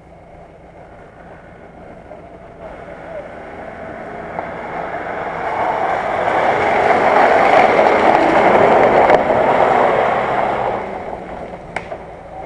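A Nissan 4x4 SUV drives up through water-filled mud ruts and passes by: engine and tyre-in-mud noise swell to a peak a little past halfway, then fade as it moves off.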